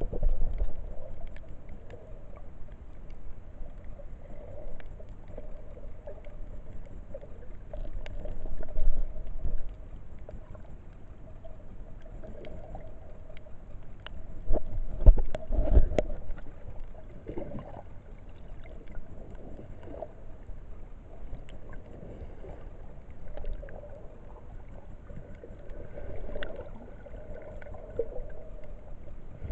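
Muffled underwater sound picked up by a camera in a waterproof housing while snorkelling: water sloshing against the housing over a steady faint hum, with louder low rushes and thumps from swimming and handling about eight seconds in and again about fifteen seconds in.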